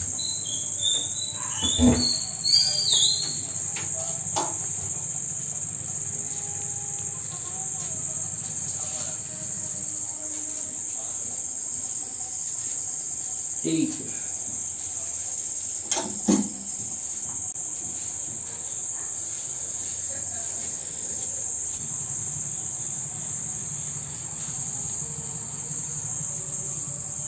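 Steady high-pitched chirring of crickets at night, with a short squeaky sliding sound about two to three seconds in and a few brief knocks.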